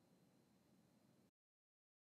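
Near silence: a faint low hiss of room tone that cuts off to complete silence just over a second in.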